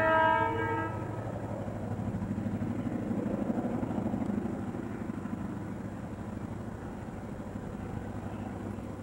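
Train horn blast ending about a second in, followed by the rumble of the passing train, swelling around three to four seconds and then slowly fading.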